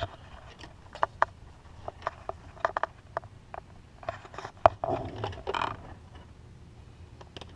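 Scattered clicks, taps and scraping of hands and tools working a rubber hose and its original clamp onto a fitting, with a busier stretch of scraping and rustling about halfway through.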